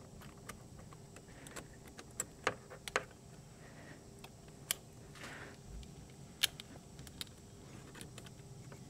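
Faint, scattered metallic clicks and taps of a spring hose clamp and extended-reach hose clamp pliers being worked onto a radiator hose, a handful of sharper clicks among them.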